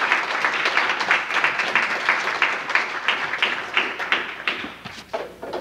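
Audience applauding, thinning out and fading near the end.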